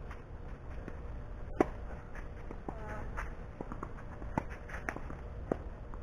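Tennis ball being hit by rackets and bouncing during a singles rally: a few sharp pops, the loudest about a second and a half in.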